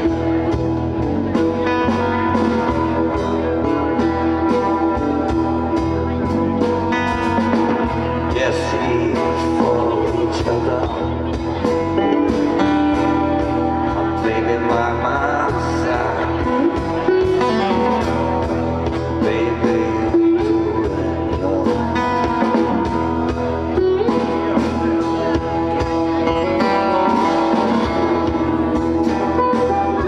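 A live band playing, with electric bass and a drum kit keeping a steady beat under held chords.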